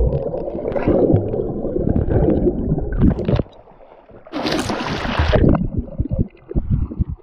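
Muffled gurgling and rumbling of stream water heard through an underwater camera, with small knocks and clicks. About four seconds in there is a brief quieter moment, followed by about a second of bright splashing at the water surface.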